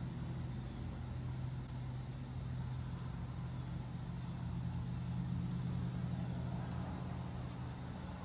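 A steady low engine hum, with a second, slightly higher tone joining about three seconds in.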